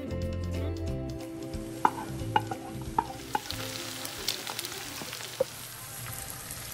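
Sliced onions and shredded chicken sizzling as they fry in olive oil in a pan, stirred with a wooden spatula. A few sharp knocks against the pan come close together in the first half.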